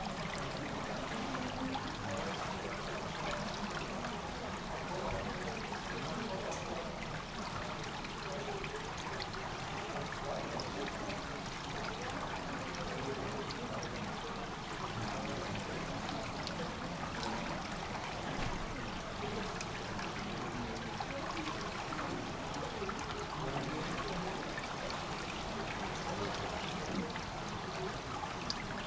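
Water trickling and splashing steadily through a swimming pool's grated overflow gutter.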